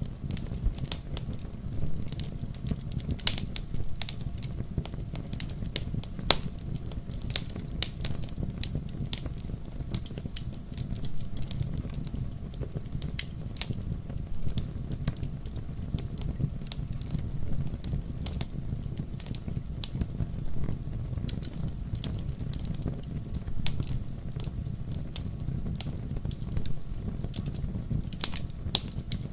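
Campfire burning, with wood crackling and popping in frequent irregular sharp snaps over a steady low rumble of the flames.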